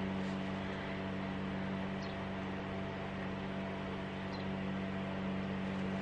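Steady drone of a lawn mower engine running, an even hum that holds without change.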